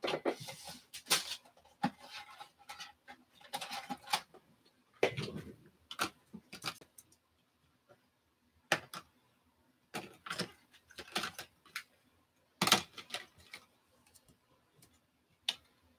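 Hands handling a thick relic trading card and plastic card holders: scattered clicks and short rustles, busiest in the first few seconds and sparser after.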